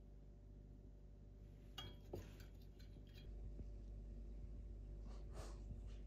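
Faint room tone with a low hum; about two seconds in, a metal teaspoon clinks a couple of times against glass as honey is spooned into a glass mug. A couple of soft swishes come near the end.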